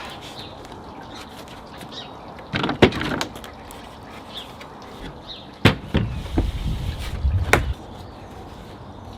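Several sharp knocks and bumps of wooden parts being handled, with three louder knocks, about three seconds in, just before six seconds and at seven and a half seconds.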